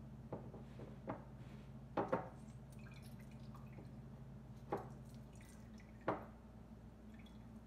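Lemon juice being squeezed by hand into a glass: a handful of irregular drips and squishes. A low steady hum runs underneath and stops about two-thirds of the way through.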